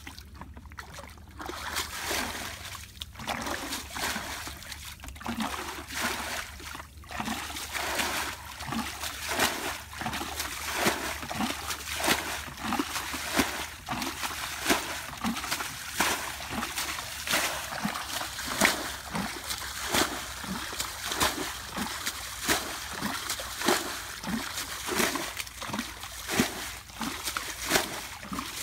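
Wet feathers being plucked from a scalded chicken in a metal basin of water. The pulls come with splashing and dripping, and settle into a steady rhythm of about one and a half pulls a second.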